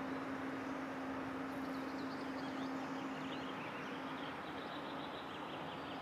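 Steady outdoor background noise with a low steady hum that fades out a little past halfway, and faint short high chirps in the second half.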